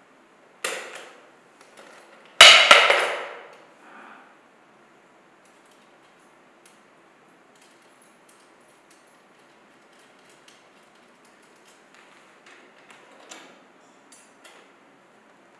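Thin black metal support rods of a table base clanking against the metal frame: two ringing clanks about two seconds apart, the second the loudest, then light clicks and taps as the rods are worked into place.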